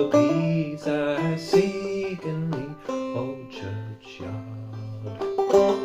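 Five-string banjo played clawhammer style in double C tuning: plucked melody notes over ringing drone strings, with a steady picking rhythm.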